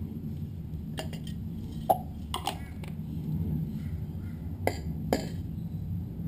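A handful of sharp, irregularly spaced clinks and knocks, like tools, a spray can or hard parts being handled and set down, over a low steady hum.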